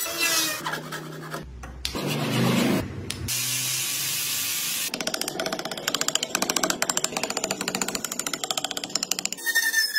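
Woodworking tools on a wooden block in quick succession: power tools running briefly, a steady hiss of sanding, then a fast run of scratchy strokes as a hand blade scrapes and shaves the wood.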